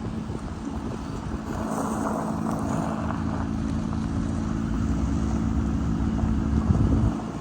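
An engine running steadily, its low rumble building up over several seconds and then falling away about seven seconds in.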